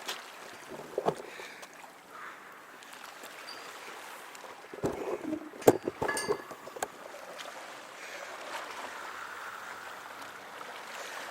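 Knocks and clatter from a stereo shotgun microphone being handled and carried on its extension cable, with a cluster of sharp knocks about five to seven seconds in. Behind and after them runs a steady wash of small waves.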